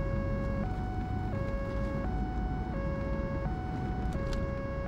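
Ambulance siren going in a steady two-tone hi-lo pattern, each note held for about two-thirds of a second, over a low vehicle rumble.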